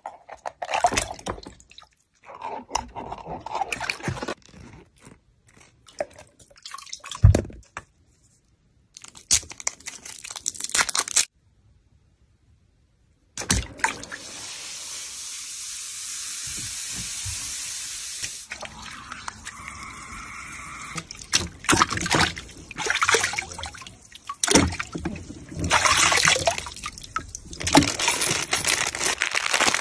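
Water sloshing and splashing as hands work in a plastic tub of water, peeling open a soaked surprise egg. There is a short silence partway through, followed by a steady hiss lasting about five seconds, then more irregular splashing.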